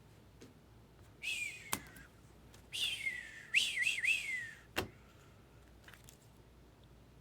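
A person whistling in amazement: a short whistle, then a longer breathy falling whistle with three quick wavers in it. A sharp click sounds twice, with the second whistle and just after it.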